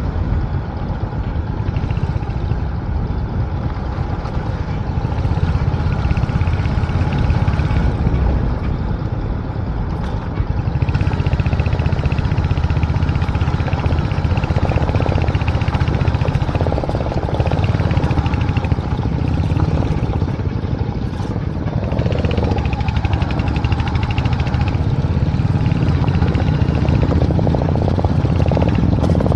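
Royal Enfield motorcycle running steadily under way, a loud, continuous low exhaust note.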